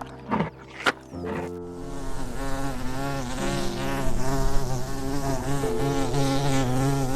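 A flying insect buzzing loudly and steadily, its pitch wavering, starting about a second and a half in. Before it come a couple of short knocks. Held background chords run underneath.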